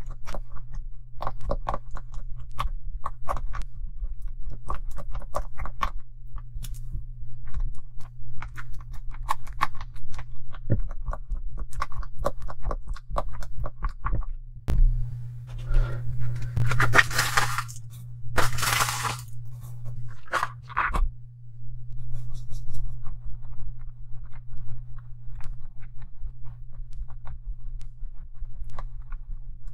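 Thick, wet slime paste of Pond's powder and sugar being stirred and pressed in a glass bowl with a silicone brush, making quick sticky squelching clicks. There are two longer, louder rushing stretches about two-thirds of the way in, and a steady low hum underneath.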